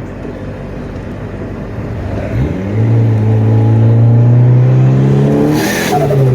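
Turbocharged Honda Accord engine cruising, then about two and a half seconds in pulling hard under boost, its note sweeping up and climbing steadily. Near the end a short hiss of turbo air comes as the throttle lifts and the revs fall.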